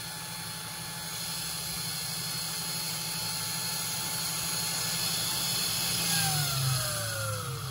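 Small handmade grinder's electric motor running with a steady whine over a hiss, then, about six seconds in, the whine falls steadily in pitch as the motor winds down.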